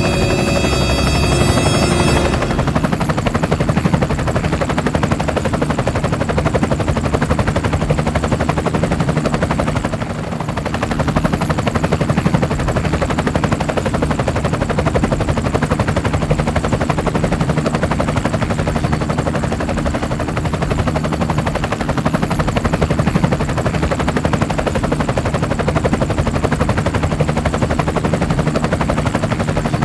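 A small vehicle's engine running steadily as it drives along a dirt track: a loud, rapidly pulsing drone that dips briefly about ten seconds in.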